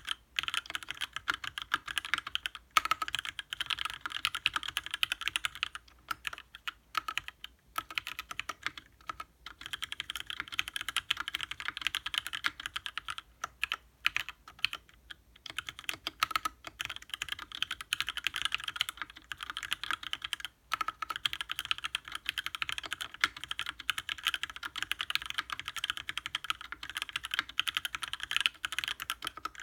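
Fast typing on a mechanical keyboard with lubed Gateron Ink linear switches in an aluminium case and plate, under GMK keycaps: a dense run of crisp key clacks with brief pauses between bursts.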